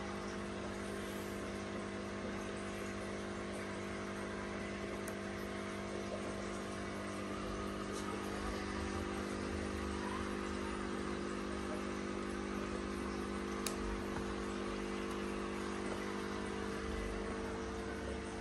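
A steady mechanical hum made of several held tones over a low rumble, unchanging throughout, with a couple of faint clicks.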